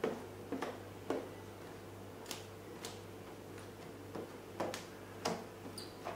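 Handheld squeegee working wet clear paint protection film over a motorcycle fuel tank's curve, giving about ten short, irregular clicks and ticks as it pushes the slip solution out from under the film. A faint steady hum runs underneath.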